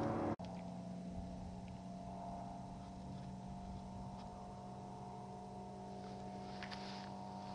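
The Kitfox's Rotax 912 engine drones overhead, then cuts off abruptly about a third of a second in. A fainter, steady motor drone follows, with a few light clicks near the end.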